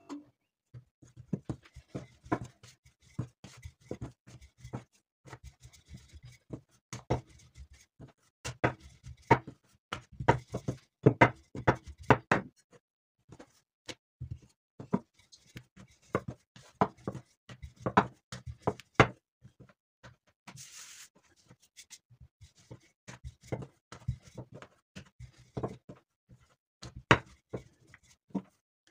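Wooden rolling pin rolling out dough rounds on a wooden table: irregular knocks and clicks with a low rumbling thud as the pin rolls and bumps the board, in runs with short pauses.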